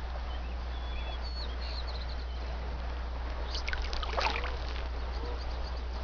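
Shallow rocky stream running steadily, with a few faint bird chirps and a short cluster of sharper chirps and clicks a little past halfway.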